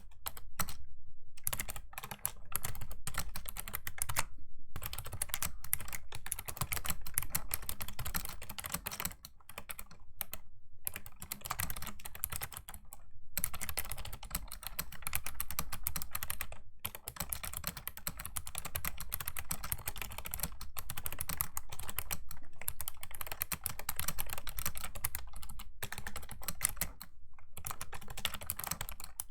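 Fast, continuous typing on a Razer Ornata Chroma V2 mecha-membrane keyboard: dense clicky keystrokes, broken by a handful of brief pauses.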